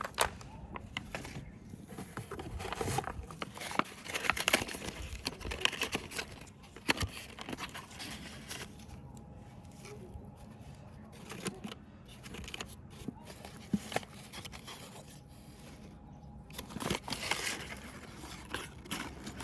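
Packaging being handled and opened: crinkling, tearing and scraping with scattered clicks. It is busiest in the first several seconds and again near the end, with a quieter stretch in the middle.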